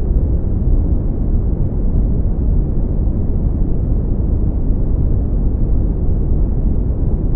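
Steady, deep brown noise, bass-boosted: an even rumbling hiss, strongest in the low bass and thinning out toward the highs.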